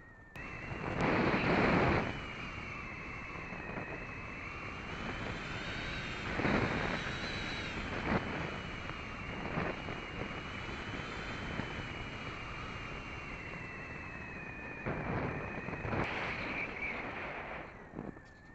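Small RC plane's electric motor and propeller whining in flight, heard from on board. The pitch steps up about half a second in, climbs higher around six seconds, eases back down and drops near the end, with rushes of wind noise on the microphone.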